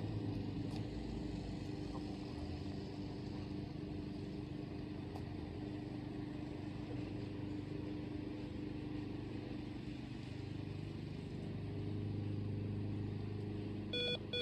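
Steady hum of a distant motor engine, growing a little louder and lower near the end. Just before the end, a short electronic beep sounds, the first of a quick run of taps on an e-collar remote.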